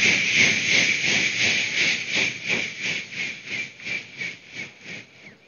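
Vocal mimicry of bullock-cart bells: a hissing, rhythmic mouth-made jingle, about three to four beats a second, that fades steadily as the imitated cart moves away.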